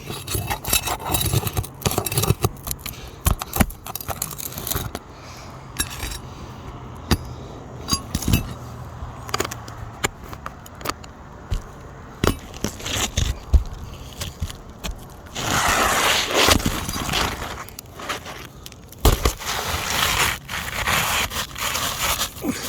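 Nails being pulled from under lifted asphalt roof shingles: repeated scraping with clicks and knocks of a tool against the shingles. There are two longer stretches of scraping in the second half.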